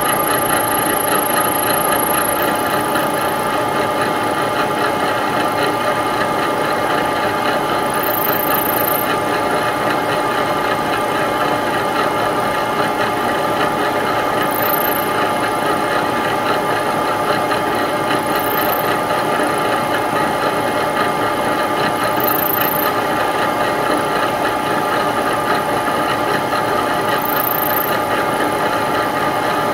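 Milling machine cutting a keyway into an 8 mm turned, ground and polished steel shaft with a 2 mm three-flute end mill: a steady, loud machining whine made of several held tones, with a brief high hiss every four to five seconds.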